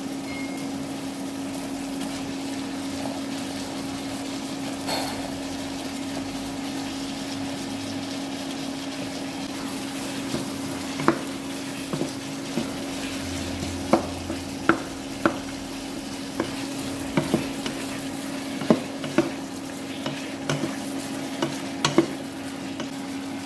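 Beef slices sizzling in a hot pan over high heat, over a steady low hum. From about ten seconds in, a wooden spatula knocks against the pan in scattered clicks as the beef and sliced onion are stirred.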